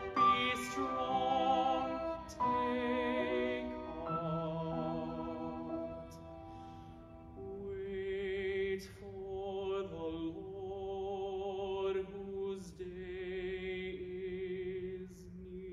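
A man singing a slow, quiet hymn with vibrato on long held notes, accompanied by violin and piano.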